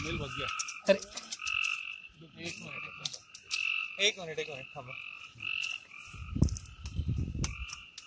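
Chorus of frogs calling, many short overlapping calls repeating on two steady pitches, one higher and one lower. A low rumble comes in about six seconds in.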